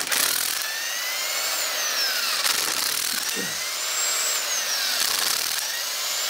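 Electric impact wrench running on the cylinder nuts of a twin-cylinder snowmobile engine, its motor pitch sweeping up and down several times as the trigger is worked.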